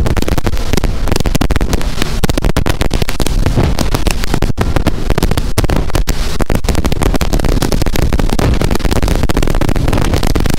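Loud, continuous wind buffeting on the microphone, full of crackle, over the rush of a centre-console boat running at about 30 knots through a choppy sea.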